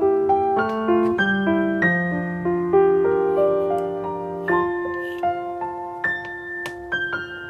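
Background piano music: a gentle melody of struck notes, each ringing and fading before the next.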